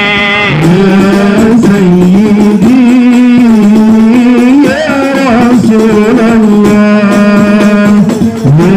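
Islamic sholawat sung by a male voice through a microphone, long ornamented melodic lines, accompanied by a group of rebana frame drums beaten in a steady hadroh rhythm.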